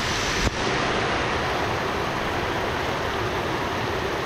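Heavy rain pouring down in a steady hiss, with a short click about half a second in.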